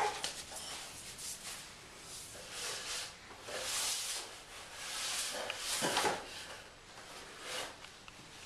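Cardboard box and lid being pushed and scraped across a tile floor by a baby, in several rough scraping bursts about a second long.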